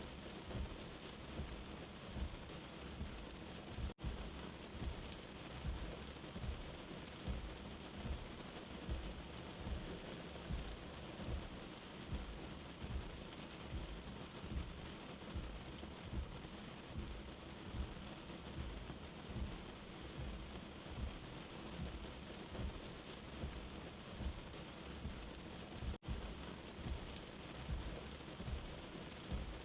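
Steady rain falling, an even hiss with a low pulsing thud repeating about once or twice a second. The sound drops out for an instant twice, about four seconds in and near the end.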